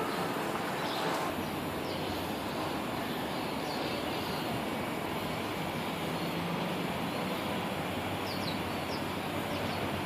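Steady outdoor city background noise with a low rumble, like distant traffic, and a few faint high bird chirps near the end.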